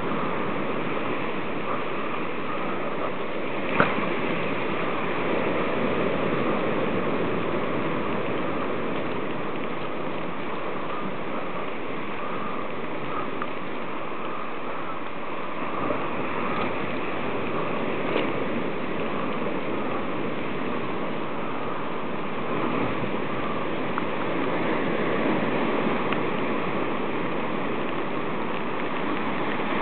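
Steady outdoor rushing noise, even throughout, with a few faint clicks, the sharpest about four seconds in.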